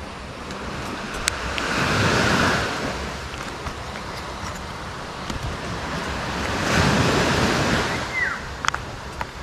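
Sea waves washing onto a beach, swelling twice about five seconds apart, with a few light plastic clicks as a diving mask's frame is fitted by hand.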